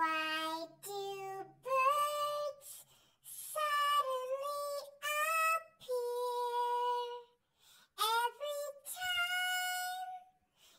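Unaccompanied singing voice: a slow tune of held notes, several starting with an upward slide, with short breaks between them.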